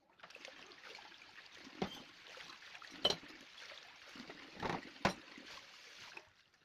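Water running from a kitchen tap into a sink, with dishes knocking and clinking against each other four times while being washed; the tap stops shortly before the end.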